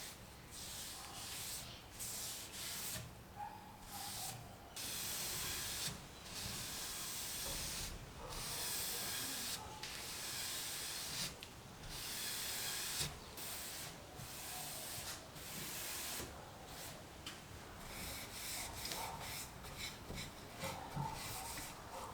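Scandinavian oil being rubbed into and buffed off a wooden tabletop: a run of rubbing strokes of a second or two each, with short pauses between them, turning quicker and shorter near the end.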